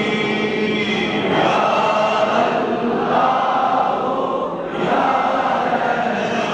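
Many voices chanting together in unison, a sustained group chant with a short break between phrases about four and a half seconds in.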